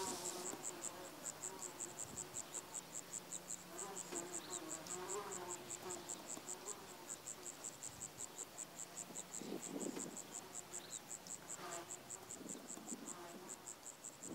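Field cricket chirping in a steady, rapid train of short, high-pitched pulses, about five a second.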